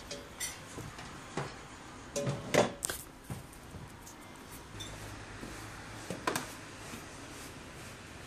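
A few light knocks and clinks of kitchenware on the stovetop, loudest in a short cluster about two and a half seconds in, over a steady low hiss.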